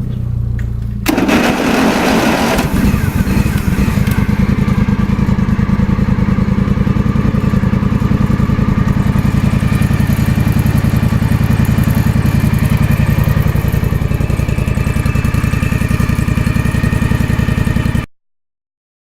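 1994 Simplicity lawn mower's small engine running steadily with a fast, even firing pulse, shortly after a cold start. About a second in there is a brief rush of noise, and near the end the sound cuts off suddenly.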